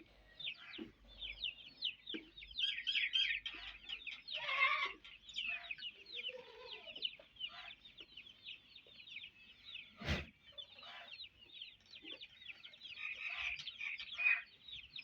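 Chickens clucking with a steady run of short, high chirps, and a single sharp knock about ten seconds in.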